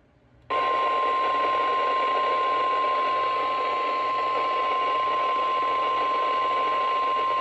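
Weather radio warning alarm tone: one steady high tone of about 1,050 Hz, starting abruptly about half a second in over a loud hiss of radio static and held unbroken. It is the alert that precedes a new warning broadcast.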